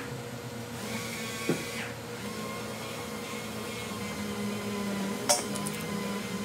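Two sharp metal clicks from hand tools working a motorcycle crash-bar clamp, a small one about a second and a half in and a louder one near the end, over a steady hum.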